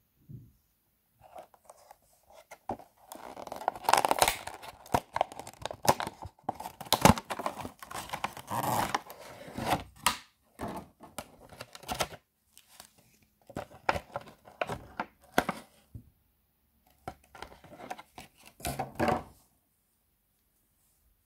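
A toy's plastic blister pack being pried and torn open by hand, crinkling and crackling with sharp clicks in irregular bursts, busiest in the first half, then stopping near the end.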